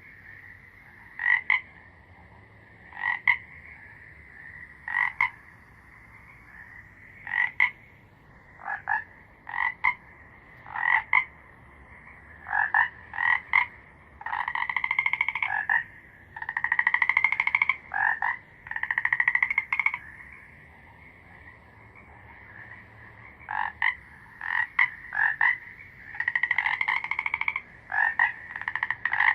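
Frogs calling: short pulsed croaks repeating about every couple of seconds, then longer rapid-pulsed trills lasting a second or two each, clustered about halfway through and again near the end. A faint steady drone sits underneath.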